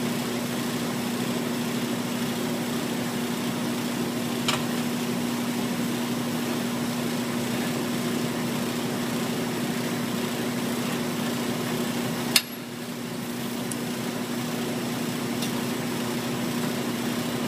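Steady machine hum and fan noise. A faint sharp click comes about four and a half seconds in, and a louder click about twelve seconds in.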